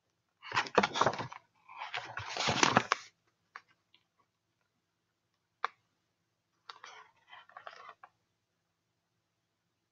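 Pages of a hardcover picture book being turned and the book handled close to the microphone: two loud paper rustles in the first three seconds, a single sharp click midway, then softer rustling near the end.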